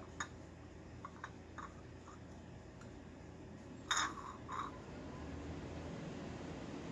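Porcelain cup and saucer being handled: a few faint clicks, then about four seconds in a short scrape of the footed cup against its saucer with a smaller one just after, over a low steady room hum.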